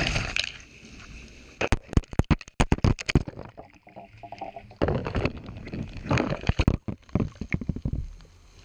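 Wind-driven hurricane rain buffeting the camera microphone. Two runs of rapid sharp knocks and rattles, about two seconds in and again about five seconds in, as the camera is jolted about.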